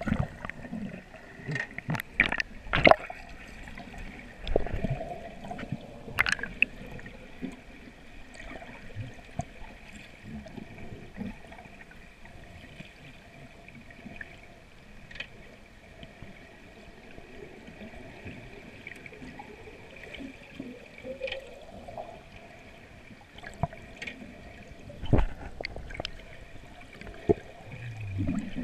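Muffled underwater water noise picked up through a submerged camera: gurgling and bubbling, with sharp knocks and clicks, several in the first three seconds and again about 25 seconds in.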